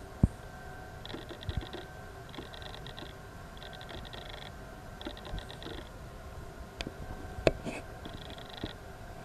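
Short, high, buzzy insect trills repeating about every second and a quarter, with a few sharp clicks, one louder about seven and a half seconds in.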